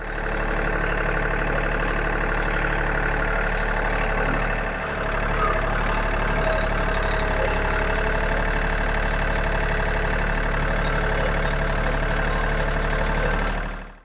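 Compact tractor engine running steadily under a front-end loader, with a brief drop in level about five seconds in.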